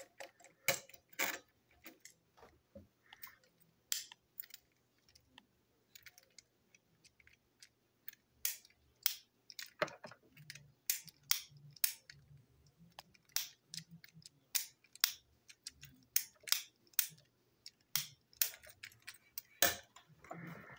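Irregular sharp clicks and taps of hard plastic as a Plarail toy train chassis is handled and its parts are fitted together.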